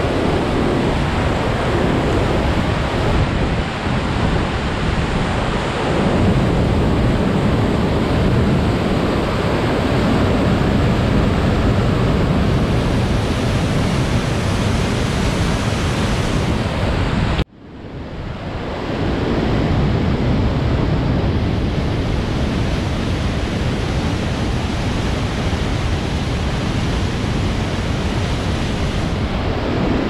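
Waterfall and rapids in full spate, a loud steady roar of rushing, churning water. About two-thirds of the way through the roar cuts out abruptly and swells back within a couple of seconds.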